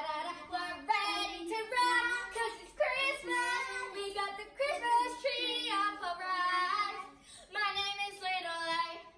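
Young children singing a song, with long held notes in phrases and a short break about two-thirds of the way through.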